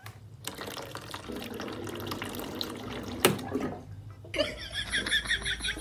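Water running from a water dispenser's tap and splashing into its drip tray, with one sharp click a little past three seconds in; the flow stops after about four seconds.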